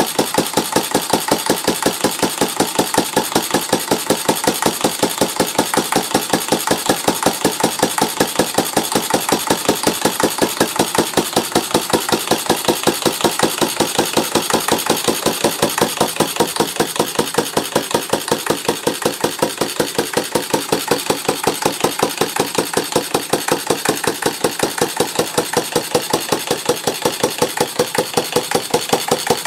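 Stover/Duro AC 1/2 HP antique air-cooled single-cylinder stationary engine running steadily, with a rapid even beat of exhaust pulses.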